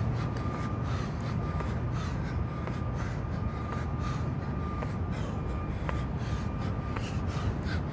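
Quick, rhythmic hard exhales and feet landing from repeated jump squats, over a steady low rumble of traffic.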